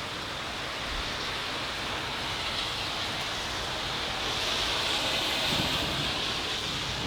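Heavy rain falling steadily during a thunderstorm, swelling slightly louder about two-thirds of the way through.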